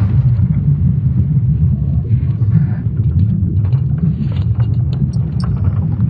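Sonified Earth's magnetic field signals from ESA's Swarm satellites: a deep, steady rumble, with scattered crackles entering about four and a half seconds in.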